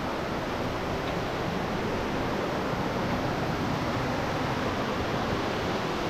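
Steady rushing of a waterfall: an even hiss with no separate events.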